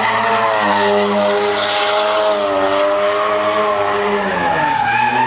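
A car engine held at high revs while the spinning rear tyres squeal and skid through donuts. The revs drop near the end.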